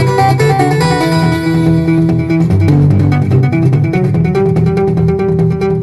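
Background music track led by guitar over a bass line, playing steadily.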